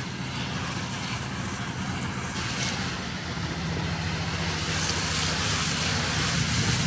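Garden hose spray nozzle spraying water onto a car's tyre and wheel: a steady hiss and splash of water on rubber and metal. Underneath runs a steady low hum, like an engine idling.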